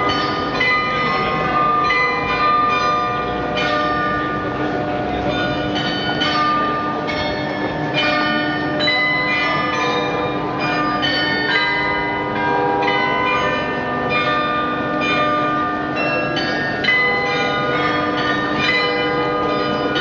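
The Glockenspiel in the Neues Rathaus tower in Munich, a set of 43 tuned bells, playing a tune. Its struck notes follow one another steadily and ring on over each other.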